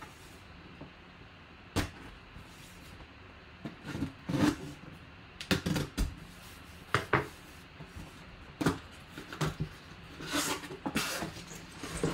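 A cardboard box being handled and opened: irregular knocks, scrapes and rustles of cardboard flaps and packaging as the box is cut open and the boxed mini helmet inside is reached.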